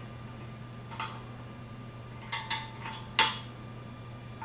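Metal wrench clinking against the stock O2 sensor and exhaust header of a Kawasaki Z125 Pro as the sensor is worked loose. Several short, ringing metallic clinks: one about a second in, a quick cluster around two and a half seconds, and the loudest just after three seconds.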